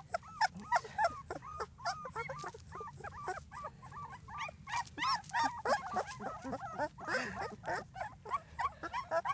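Very young puppies whimpering and squealing: many short, high-pitched cries in quick succession, overlapping.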